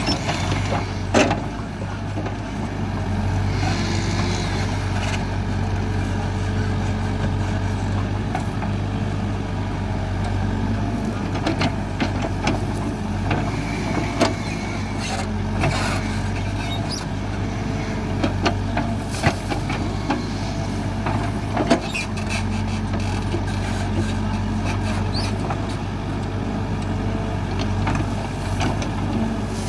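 Hidromek 102B backhoe loader's diesel engine running steadily under load while digging out roots, with scattered sharp knocks from the bucket and arm.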